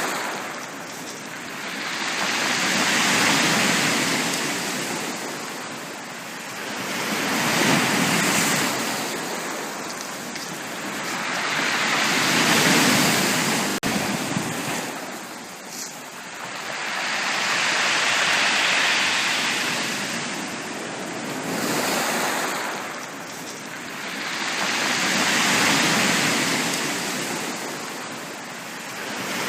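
Sea waves breaking on a beach and washing back, in a slow steady rise and fall with a new swell every four to six seconds.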